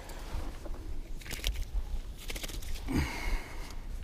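Scattered crunches and scuffs on gritty, shell-strewn sand, with a low rumble of wind on the microphone.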